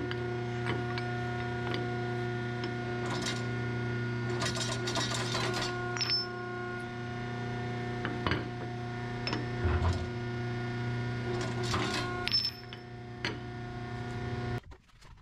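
A hydraulic shop press's electric pump motor hums steadily while a rubber bushing is pressed in a truck torque rod, with clinks and knocks of steel parts on the press table. The motor shuts off near the end.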